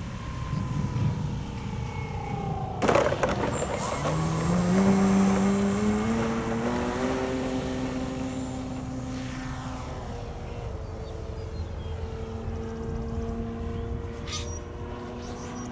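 Brushless electric motor and propeller of a large RC scale Ercoupe in flight: a whine falling in pitch, a brief rush of noise about three seconds in, then the motor tone rising and holding steady, over a low rumble of wind.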